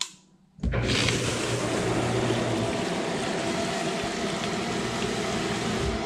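A click, then about half a second later a submersible sump pump starts up on battery-backup inverter power and pumps water out of a full pit up its PVC discharge pipe: a steady motor hum under rushing water. A low thump comes near the end.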